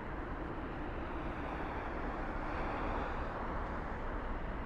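Steady rumble and hiss of a moving vehicle, even and unbroken.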